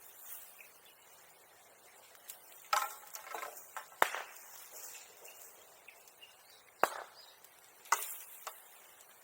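Sharp wooden cracks and knocks: four loud ones a second or more apart, with a few fainter ticks between them.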